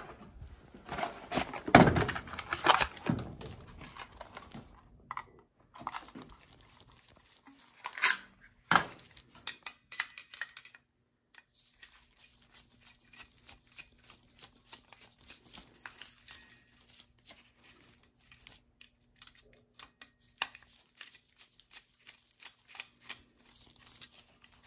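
Unpacking and handling a new Honeywell zone valve head: packaging crinkling and tearing over the first few seconds, a couple of sharper clicks about eight seconds in, then scattered light clicks and taps as the valve head is turned over in gloved hands.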